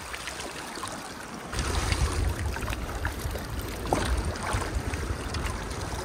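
Wind buffeting the microphone, with a low rumble that strengthens about a second and a half in, over lake water lapping.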